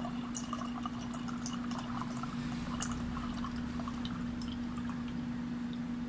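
Water from an LG refrigerator's door dispenser pouring in a thin, steady stream into a metal cup, over a constant low hum.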